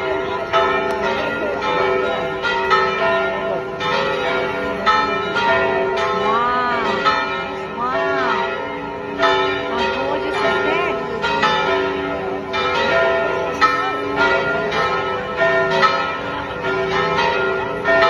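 A peal of several church bells ringing together. The bells strike in quick, uneven succession and their tones overlap and ring on without a break.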